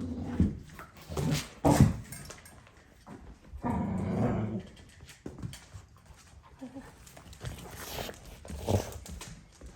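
Dog growling, a low rumble lasting about a second, roughly four seconds in. Several sharp thumps and knocks come before and after it, the loudest near the start.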